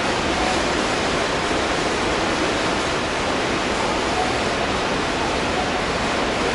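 Steady, even rushing noise on an underground subway platform beside a standing Seibu 40000 series train, the hum of the stopped train and the station's ventilation, with no movement or announcements.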